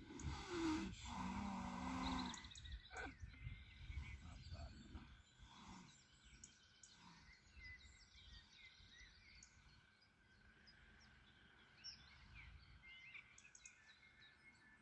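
Horse snoring as it sleeps: a loud, deep groaning snore in the first two seconds or so. After that it is quieter, with small birds chirping.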